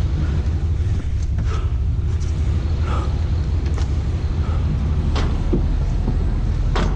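Vehicle engine idling with a steady low rumble, with a few scattered light knocks.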